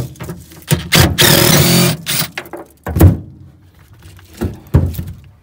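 DeWalt cordless impact driver hammering on the body bolts of a Jeep CJ tub floor, one burst of about a second followed by several short bursts. The bolts are coming out freely.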